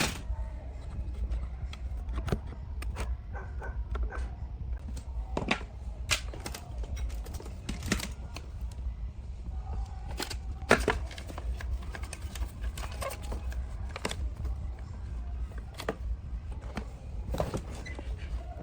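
Irregular clicks and light knocks of hand tools and small parts being handled, one sharper knock about two-thirds of the way through, over a steady low hum.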